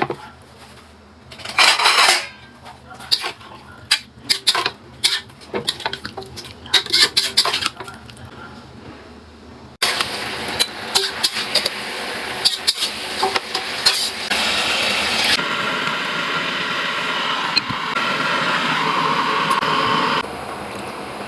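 Kitchen utensils clinking and knocking against dishes and pans for the first half, then a steady hissing cooking noise that shifts in level at several abrupt cuts.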